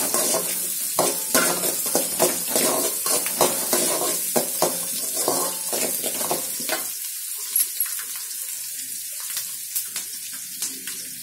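Sliced shallots, garlic and curry leaves sizzling in hot oil in a metal kadai, with a metal spatula scraping and tapping the pan as they are stirred. The stirring strokes thin out about seven seconds in while the frying sizzle goes on.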